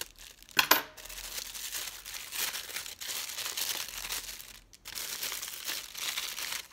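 Thin black plastic mailing bag crinkling as it is cut with scissors and pulled open by hand. One loud sharp crackle comes a little over half a second in, then steady crinkling with a brief pause near the middle.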